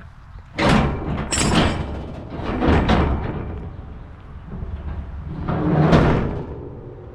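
Steel loading ramps on a flatbed equipment trailer being raised and set upright: four loud bursts of metal scraping and clanking, the first about half a second in, then at about a second and a half, near three seconds and near six seconds, one with a brief high metallic ring.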